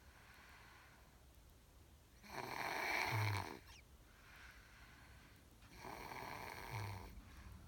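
Snoring: two loud snores about three and a half seconds apart, the first about two seconds in and the louder of the two. Each is a noisy drawn breath of a little over a second that ends in a short low rumble.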